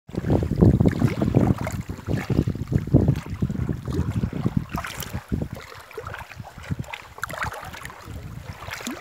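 Water splashing and sloshing as a large fish caught in a cast net thrashes in shallow water. The splashing is busy and loud for the first half, then thins to a few scattered splashes.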